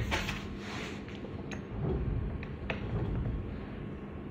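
Barber chair's black armrest parts handled and fitted by hand: a brief plastic clatter at the start, then a few light clicks and taps about a second and a half and near three seconds in.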